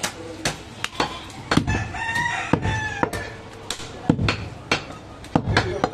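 A cleaver chopping mutton on a wooden chopping block, about two sharp chops a second. Around the middle a drawn-out animal call is heard in the background.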